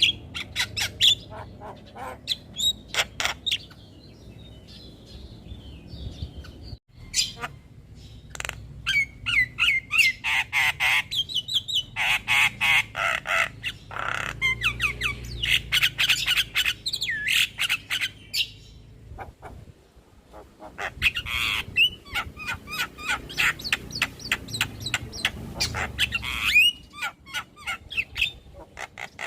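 Javan myna (jalak kebo) chattering: bursts of harsh squawks, whistled notes and rapid clicking calls, with short lulls a few seconds in and around the middle.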